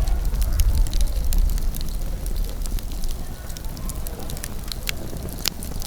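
Wood campfire crackling, with irregular sharp pops and snaps and one louder snap near the end.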